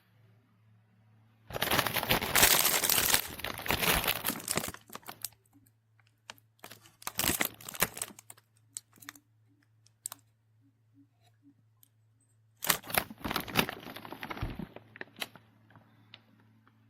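Two bursts of crinkling and tearing, each a few seconds long, with scattered sharp clicks and taps between them.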